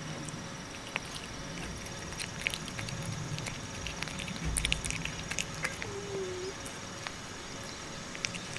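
A calico cat eating chunks of fish from a plate close to the microphone: scattered small chewing clicks and smacks, with a short, faint low tone about six seconds in.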